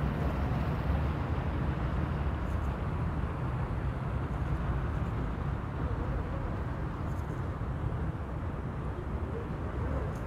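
Steady rumble of city traffic, an even low hum with no single vehicle standing out.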